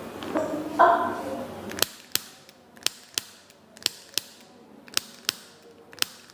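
A short stretch of voice, then sharp clicks or taps in regular pairs, about one pair a second.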